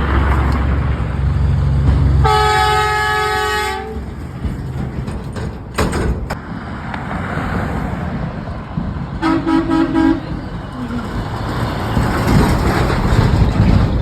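A truck's horn sounds one loud blast of about a second and a half, starting about two seconds in. A shorter, lower horn honk follows near the ten-second mark, over the steady rumble of passing traffic.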